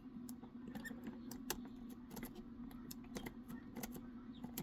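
Dimple rake working the pins of a J&C mini shackle bicycle lock under tension from a turner: faint, irregular small metallic clicks and scrapes.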